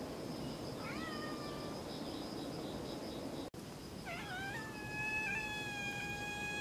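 Tabby kitten meowing: a short, slightly falling meow about a second in, then a long, high meow from about four seconds in that wavers at first and then holds steady.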